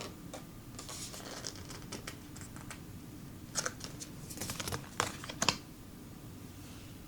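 Tarot cards being handled and flipped: soft sliding and rustling of card stock with sharp little snaps and taps, the loudest a few seconds in.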